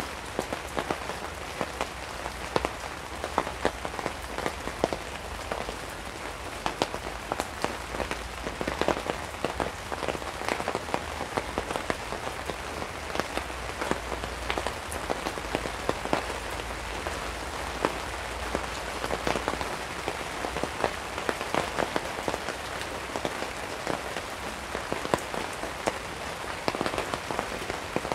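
Steady rain pattering on a surface, a dense mass of small drop ticks without let-up.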